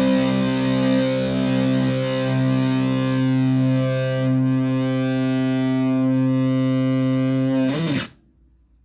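Stratocaster through a Tone Bender MKI fuzz pedal with filter and a Twin Reverb-style amp: one held, heavily fuzzed chord that sustains for about eight seconds, then is cut off suddenly.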